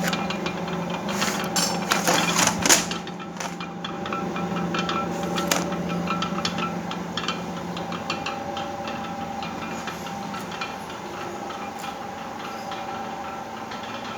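Chain assembly machine running: a steady hum with rapid, continuous clicking and clatter, loudest about two to three seconds in.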